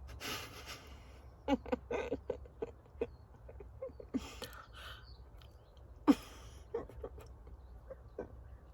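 A dog making small sounds: a few short breathy puffs and scattered small wet clicks and knocks, as of a greyhound snuffling and licking.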